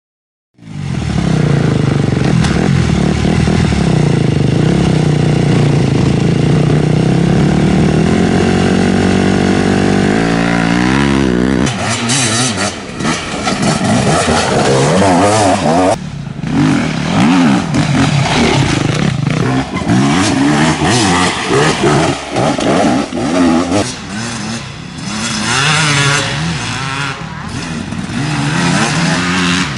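Enduro dirt bike engines. One engine runs steadily at first and climbs in pitch before about 11 s. After that, bikes rev hard and ease off as they race by close to the microphone, the engine note rising and falling with each shift and throttle change.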